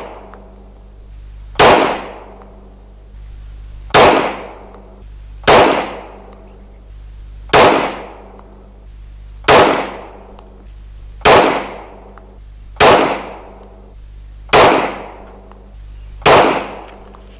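Glock 17A Gen 4 9mm pistol firing a slow string of nine shots, about one every one and a half to two seconds, each sharp report followed by a short fading echo.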